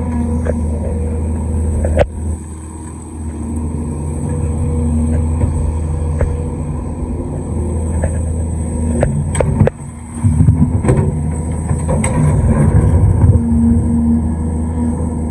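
Large excavator's diesel engine running steadily under work, with a sharp knock about two seconds in and a cluster of knocks and clanks about nine to eleven seconds in.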